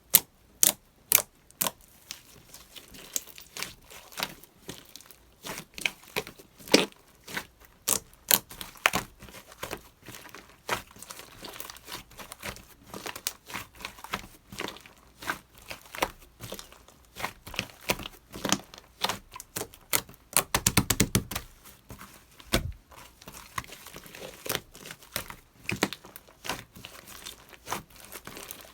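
Slime being squeezed and poked by hand, giving a string of sharp, irregular clicking pops and squishes. About two-thirds of the way through comes a quick rapid run of pops.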